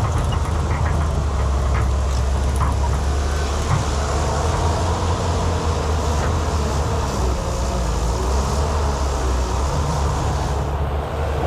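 Excavator engine running steadily under load, with a few light knocks and clanks scattered through it.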